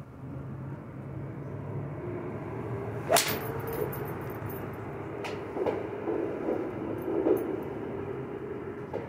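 Golf iron striking a ball off a driving-range mat: one sharp crack about three seconds in. A fainter click follows about two seconds later, over a steady background hum.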